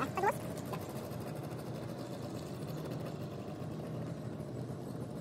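Boat engine running steadily, an even low hum while the yacht is under tow.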